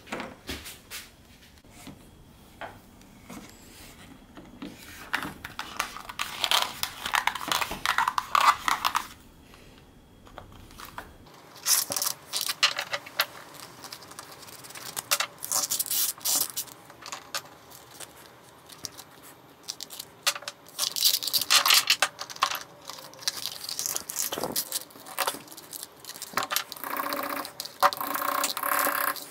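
Irregular clicks, clinks and scraping of hand tools and leather being handled and worked.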